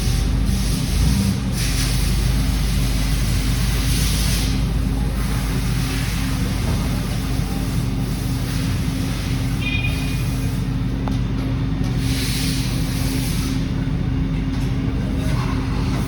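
Hurco CNC milling machine running steadily, with a constant hum and intermittent hissing surges.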